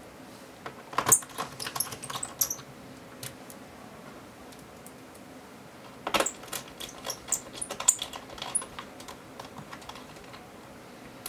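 Small Phillips screwdriver refitting screws into a laptop's plastic base panel: light, rapid clicks and ticks in two spells, the first about a second in, the second from about six seconds in.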